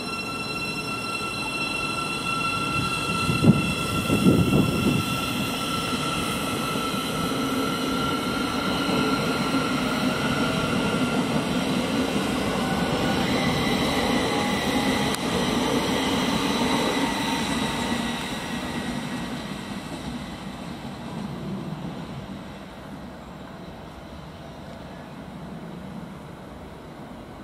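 Thameslink Class 700 electric multiple unit drawing away along the platform, its traction motors whining in steady tones over a rolling rumble, with a couple of knocks from the wheels a few seconds in. The whine steps up in pitch about halfway through, then the sound fades as the train recedes.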